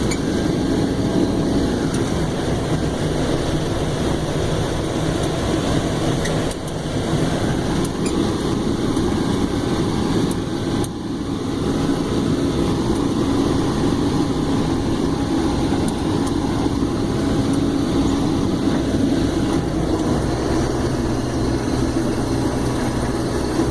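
Case IH 2388 combine running steadily while harvesting corn with an eight-row 883 corn head, heard from the operator's cab as a continuous drone.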